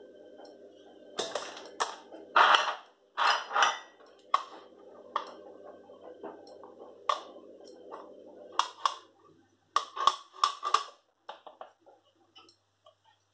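A salmon fillet being pressed and turned in flour on a plastic plate: irregular taps and soft slaps of the fish and the plate, loudest a couple of seconds in and again near ten seconds. A steady low hum runs underneath and stops about two-thirds of the way through.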